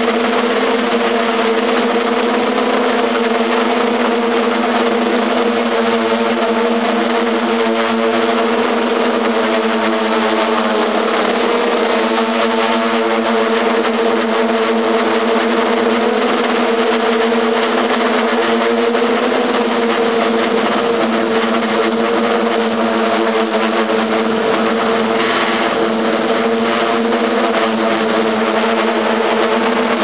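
A hexcopter's electric motors and propellers running with a steady, unchanging hum, heard through its onboard camera, with a hiss of noise over the top.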